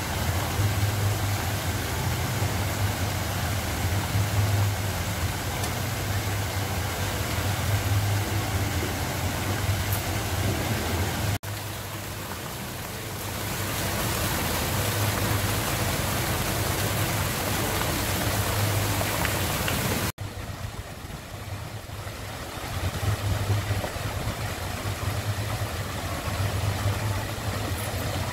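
Fountain jets and a spray-ball fountain splashing into a canal: a steady rushing hiss of falling water with a low uneven rumble under it. It breaks off abruptly twice, about 11 and 20 seconds in.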